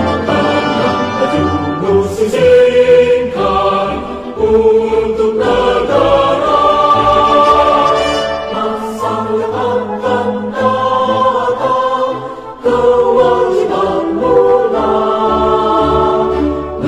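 Background music: a choir singing held notes over a low instrumental backing.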